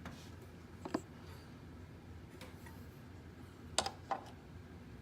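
A few light clicks and knocks as the EVAP canister purge valve is slid off its mounting studs on the intake manifold: one about a second in, two close together near the four-second mark, over a low steady background hum.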